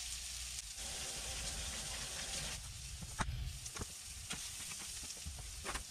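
Flour- and egg-coated fish patties sizzling in butter on a ridged stovetop grill pan, a steady hiss with a few faint clicks in the second half.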